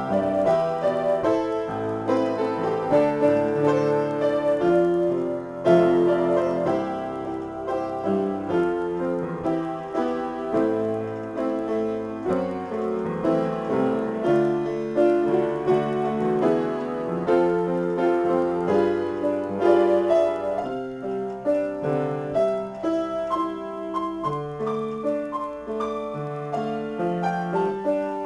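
Upright piano played solo as an improvisation, a continuous flow of notes and chords without a break.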